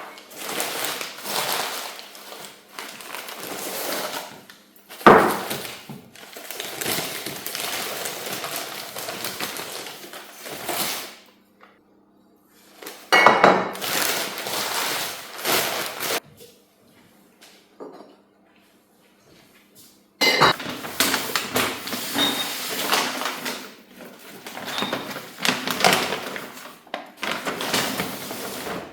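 Crockery and cutlery clinking and clattering as they are handled, in several stretches with a few sharper knocks and short pauses between.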